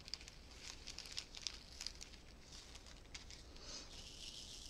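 Faint pattering of small diamond-painting drills poured from a small plastic zip bag onto a plastic tray, with light crinkling of the bag. Many quick ticks, then a short soft hiss near the end as the drills settle on the tray.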